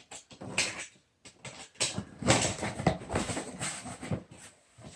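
Cardboard box and plastic packaging being opened and handled by hand: irregular rustling and crinkling with small knocks.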